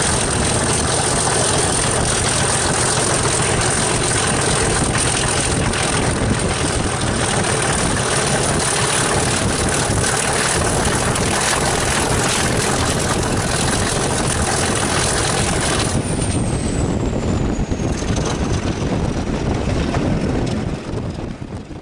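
BR Class 37 diesel locomotive's English Electric V12 engine working steadily at the head of the train, heard from a carriage window just behind it. About sixteen seconds in the sound eases and a high whine falls steadily in pitch.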